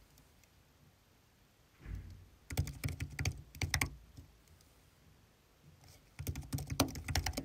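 Fast typing in a speed test: a clatter of rapid key taps in two bursts, one about two and a half seconds in and another from about six seconds in, with short pauses between.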